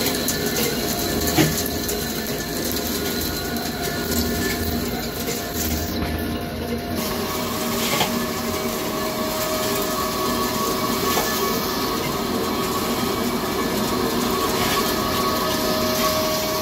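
CNC vertical turret lathe turning a large metal ring: a steady machining noise of the insert cutting and the table turning, with a hum of several steady tones. Chips give a couple of sharp ticks. The tones change about seven seconds in.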